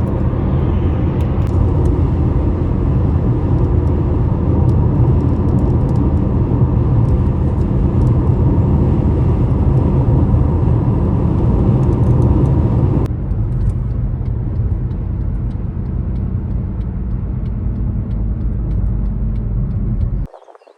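Car driving along the road: a steady, loud low rumble of engine and tyres. About two-thirds of the way through the higher hiss drops away, and the sound cuts off abruptly just before the end.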